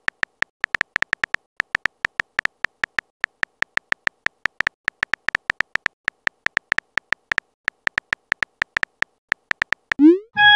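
Phone keyboard typing sound effect: quick, short, high pips at an uneven pace, about six a second, as a chat message is typed letter by letter. Near the end a rising swoosh and chime begin as the message is sent.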